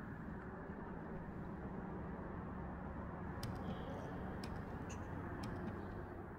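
Steady muffled noise on a handheld camera's microphone, with a few faint clicks from about halfway through as the camera is turned around.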